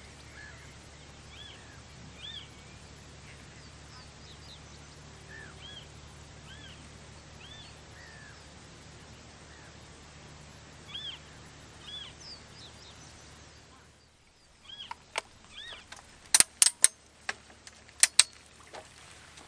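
Short high bird chirps repeating about once a second over a faint low hum. From about fifteen seconds in, a run of loud sharp clicks and knocks as the camera on its tripod is handled.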